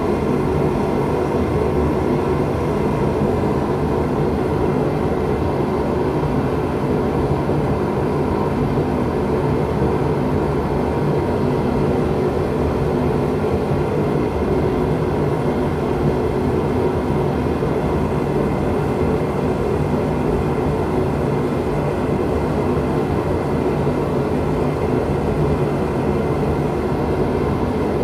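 A forge running steadily: a constant roar with a low hum while the steel heats, with no hammer strikes.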